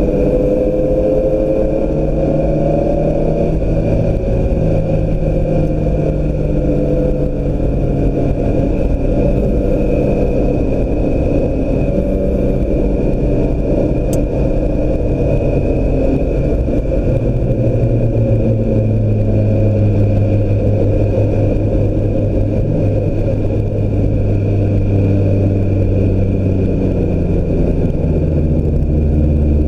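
2016 Mazda MX-5 Miata's 2.0-litre four-cylinder running under way at moderate revs. The engine pitch eases down and settles lower through the second half, over a steady hiss of road and wind noise.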